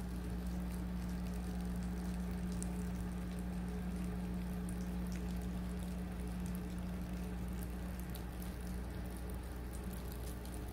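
A steady low hum with faint scattered ticks and crackles over it, easing slightly in level near the end.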